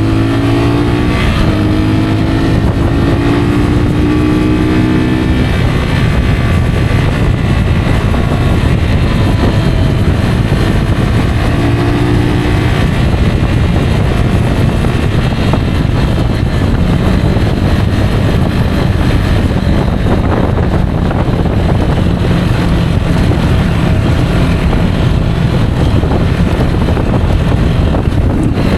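Rieju Aventura 125 motorcycle's single-cylinder 125 cc engine running while riding, its pitch rising and falling several times in the first five seconds and again briefly about twelve seconds in, then holding steady, over constant noise.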